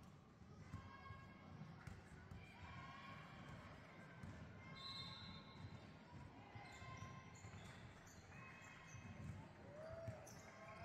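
Basketball bouncing faintly on a hardwood gym floor, with faint voices carrying in the large hall.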